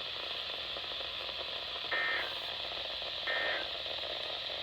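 Weather radio receiver hiss with three short two-tone digital data bursts, about 1.4 s apart, the last at the very end. These are the SAME code bursts of an emergency alert broadcast, here likely the end-of-message signal closing the warning.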